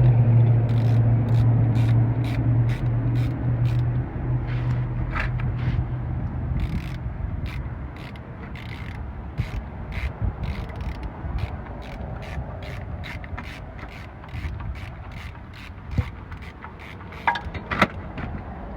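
Socket ratchet clicking steadily, about two to three clicks a second, as it loosens the oil filter for an oil change, with a few louder knocks near the end. A low steady hum fades out over the first several seconds.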